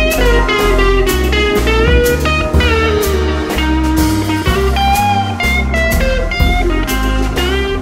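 Background music: a bluesy guitar playing sliding notes over bass and a steady drum beat.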